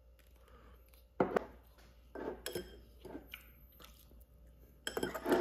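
A few light, separate taps and clicks of cutlery against a plate and small ceramic bowl as matcha cake is cut and served, with soft chewing.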